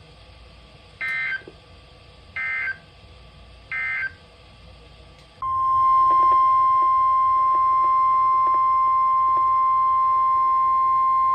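Three short bursts of EAS/SAME digital data chirps from a NOAA Weather Radio broadcast, the end-of-message code closing the warning just read. About five seconds in they are followed by the loud, steady 1050 Hz weather radio alert tone that heads the next warning.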